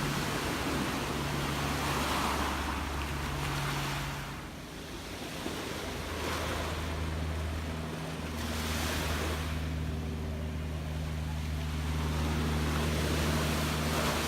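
Gentle sea waves washing in and ebbing away, the hiss swelling about four times. A steady low hum runs underneath.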